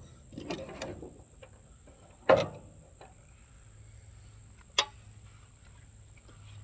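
Hand tools being handled and set down: a single loud clunk about two seconds in and a short sharp click near the middle, with faint handling noise between.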